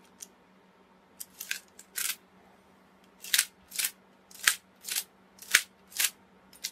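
Metal finger linkages of a homemade mechanical prosthetic hand clicking as the fingers open and close, about a dozen short, sharp clicks, coming roughly every half second in the second half.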